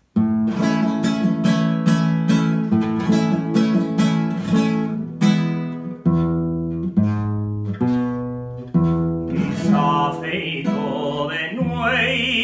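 Classical guitar strummed in a quick, even rhythm, the instrumental introduction to a jota; about ten seconds in a man's voice starts singing over the guitar.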